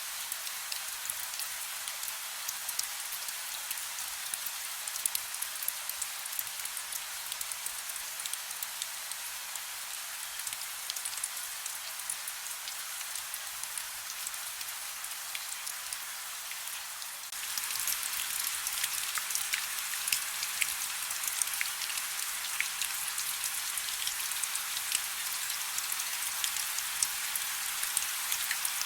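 Steady rain, with many individual drops ticking through a constant hiss. A little past halfway the rain abruptly becomes louder and stays so.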